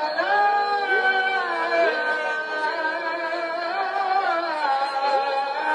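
A man's voice chanting the Islamic call to prayer (azan) in long, wavering held notes.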